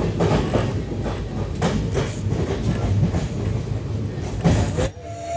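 Passenger express train running on the rails: a steady heavy rumble with irregular clattering as the wheels cross rail joints. It cuts off abruptly near the end.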